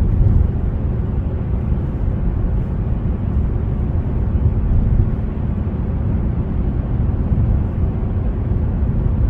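Steady, low road and engine noise of a car driving through a road tunnel, heard from inside the cabin.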